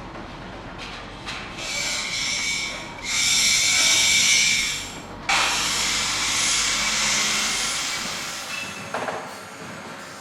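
Construction-site machinery hissing with a steady high whine, in surges: the loudest stops abruptly about five seconds in and another starts at once, then fades away, with a few short clicks near the end.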